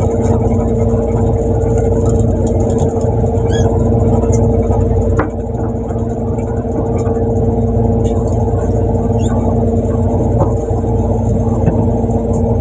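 Fishing boat's engine running steadily: a constant low drone with a steady hum, with a few light clicks and knocks from work on deck.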